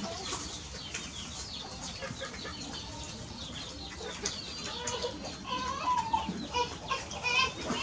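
Birds calling, a run of short chirps and clucks that grow louder and more frequent over the last few seconds.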